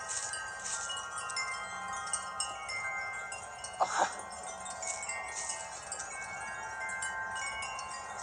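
Several metal wind chimes ringing in gusty wind, many overlapping sustained tones with frequent fresh strikes. A short louder sound stands out about four seconds in.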